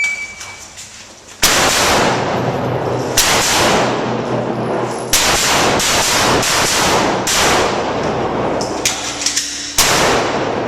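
A shot timer's beep, then a string of pistol shots fired at an uneven pace, about a dozen over some eight seconds, some in quick pairs and triplets, each with a ringing echo.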